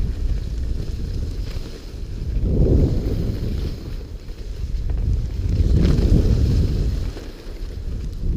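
Wind rushing over the camera microphone during a downhill ski run, with the skis sliding over snow; the low rumble swells and eases every few seconds.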